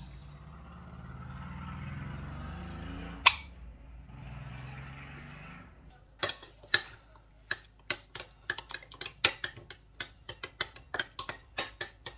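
Ketchup squeezed from a bottle onto mayonnaise in a ceramic bowl, with a sputtering hiss and one sharp click about three seconds in. From about six seconds on, a metal spoon clinks rapidly and irregularly against the bowl as the sauces are stirred together.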